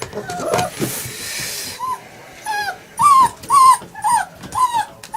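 German Shepherd puppies whining: a string of short, high cries that rise and fall, about two a second, with a brief hiss about a second in.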